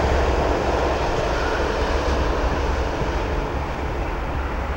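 Steady low rumble with a hiss over it, easing slightly toward the end.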